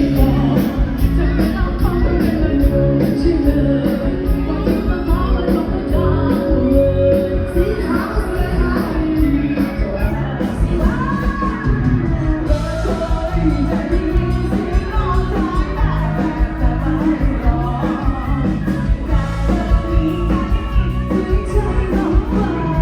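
Live bar band playing a song with a singer, over a steady heavy bass and drumbeat.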